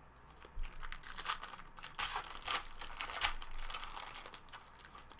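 Plastic-foil wrapper of a trading card pack crinkling and tearing as it is ripped open and pulled off, an irregular run of crackles and rips.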